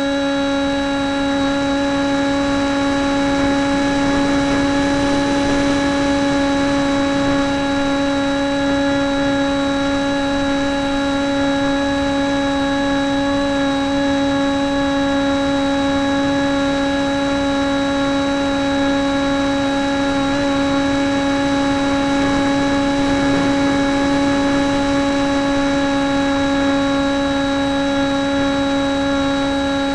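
Profile Draken radio-controlled model airplane in flight, its motor and propeller running with a steady high whine at constant throttle, over a constant rush of air, heard from a camera mounted on the airframe.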